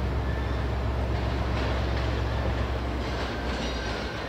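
Freight train of autorack cars rolling past: a steady low rumble of steel wheels on rail with a light clatter over the rail joints, easing slightly near the end.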